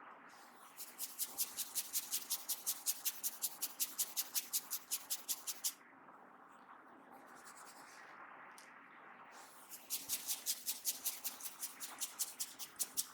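Hair crackling from a head massage: fingers rubbing and pulling strands of hair against the scalp in quick, even, crisp scratches, about six a second. It comes in two runs, about five seconds then about three seconds, with soft rustling between.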